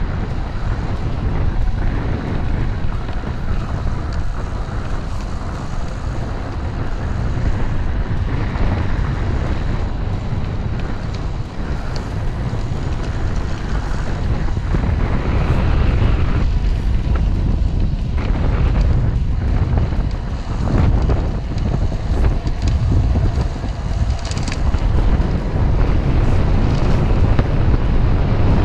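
Wind buffeting the microphone of a camera riding on a moving road bike, a loud, steady low rumble, with a few brief clicks and rattles.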